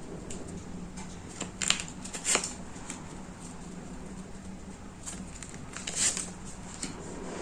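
Tarot cards being handled and laid out: a few brief, soft rustles of cards sliding against each other over a faint steady hum.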